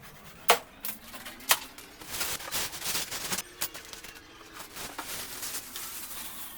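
Packaging being handled while a washing machine is unboxed: two sharp snaps about a second apart, then crinkling, scraping and small clicks of plastic and cardboard.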